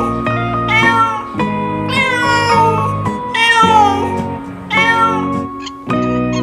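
Domestic cat meowing about four times, each call a short pitched cry that bends in pitch, over steady background music.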